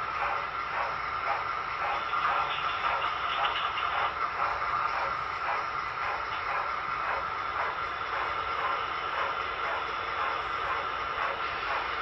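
HO scale BLI Union Pacific #844 model train running past on the track: a steady whir with a fast, even pulse.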